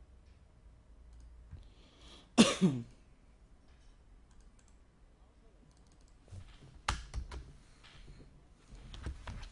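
A man's short cough about two and a half seconds in, then a few sharp computer-keyboard clicks later on.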